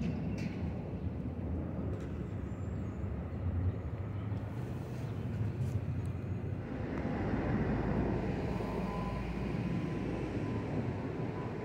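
Twin-engine jet airliner passing overhead: a steady low engine rumble that swells into a fuller rushing sound about six seconds in, with a faint thin whine joining near the end.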